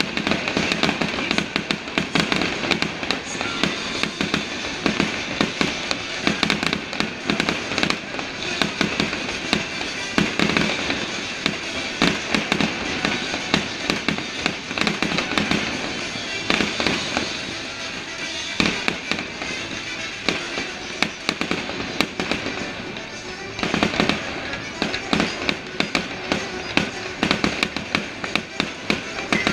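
Fireworks show in full swing: dense, continuous crackling and popping of fireworks bursts, many a second, with a brief easing about three-quarters of the way through. Music plays underneath.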